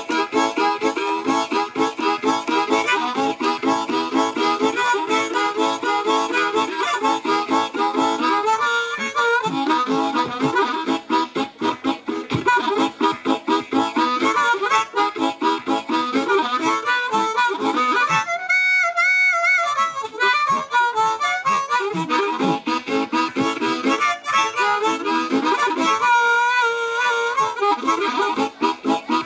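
Blues harmonica played into a handheld microphone in a train-blues piece: fast, rhythmic chugging, broken by long wavering held notes about 18 seconds in and again about 26 seconds in.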